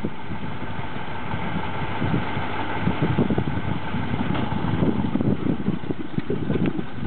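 KrAZ-256B1 dump truck's YaMZ-238 V8 diesel engine idling with a low, steady rumble.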